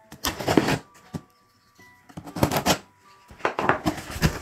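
Hands opening a taped cardboard shipping box, the packing tape and cardboard rustling and scraping in three short bursts.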